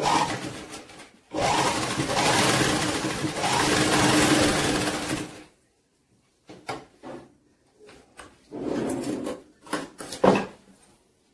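Sewing machine stitching fabric: one long steady run of about four seconds, then shorter starts and stops, with a few sharp clicks near the end.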